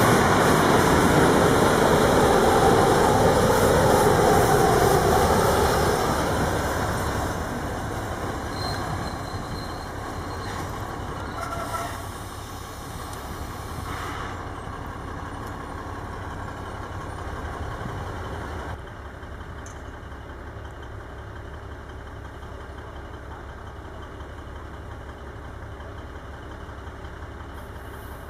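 M262 diesel railcars and their coupled trailer rolling slowly past at close range. The engine and wheel noise is loud for the first several seconds, then fades as the train draws away. After that a steady, quieter diesel engine idles at a distance.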